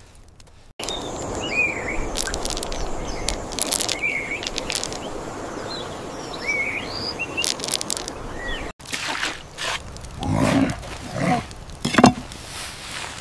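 Outdoor ambience: birds chirping a few times over a steady rushing hiss. About nine seconds in it cuts to a run of knocks and scrapes, with a few heavier thumps near the end.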